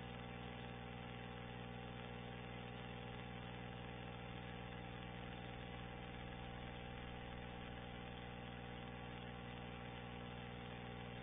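Steady, unchanging hum made of several fixed tones over a low drone, with no blast, rumble or other sudden sound.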